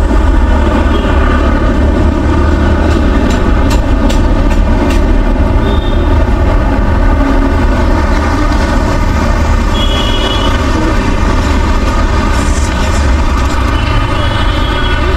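Steady, loud low rumble of street traffic with a constant hum over it, and a few faint clicks about three to five seconds in.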